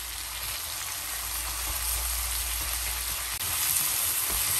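Noodles, shrimp and green beans sizzling in a hot wok with dark soy sauce as they are stir-fried with chopsticks; the sizzle gets a little louder about three and a half seconds in.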